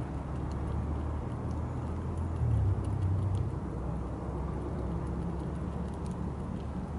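Low rumble of passing road traffic, swelling louder about two and a half to three and a half seconds in.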